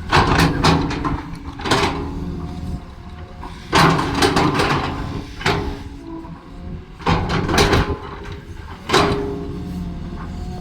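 Excavator diesel engine running steadily under load, with several bursts of scraping and clanking from the bucket digging into the ground, about a second each, near the start, around four seconds in, around seven seconds in and near the end.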